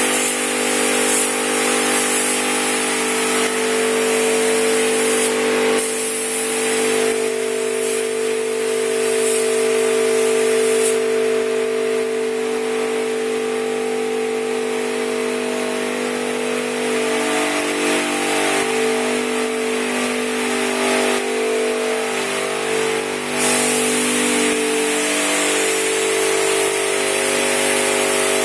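Gravity-feed spray gun hissing as it sprays clearcoat, over a steady mechanical drone. The hiss eases off for a stretch in the middle, and the drone wavers in pitch for a few seconds later on.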